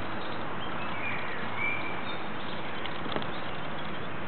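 Steady outdoor background noise at an even level, with a short bird call about a second and a half in.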